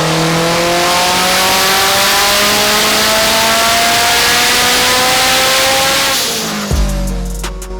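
Car engine under load, its pitch climbing slowly and steadily for about six seconds over a loud hiss of tyre noise, then fading as music with a deep bass beat comes in.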